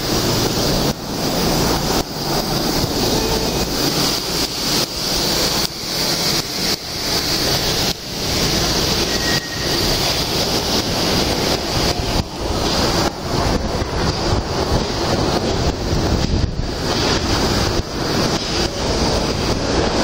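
Loud, steady rushing noise on a crowded subway platform as passengers walk off a train, mixed with rubbing and knocking on the microphone of a hand-held camera carried along with the crowd.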